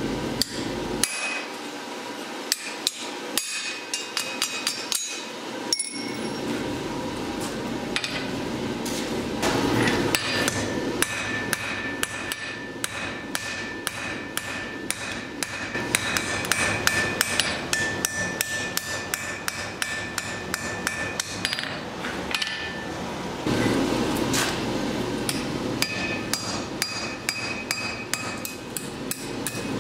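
Blacksmith's hammer striking steel on an anvil, many quick blows several a second, with a ringing tone between the strikes.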